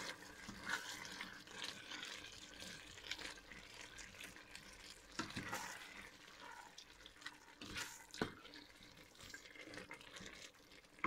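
Wooden spoon stirring a thick tomato and spinach stew in a stainless steel pot, a faint wet churning with small clicks, and a few sharper knocks of the spoon against the pot about halfway through and a little later.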